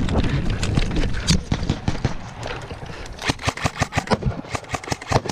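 Airsoft guns firing, a scatter of sharp snapping shots that thickens into rapid bursts about three seconds in.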